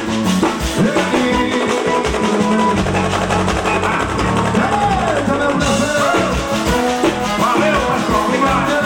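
Live forró band music with a steady drum beat and a gliding melody line over it.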